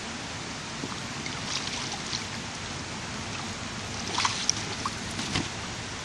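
Shallow mountain stream running steadily, with a few small splashes and sloshes from wading in the water, the sharpest about four seconds in.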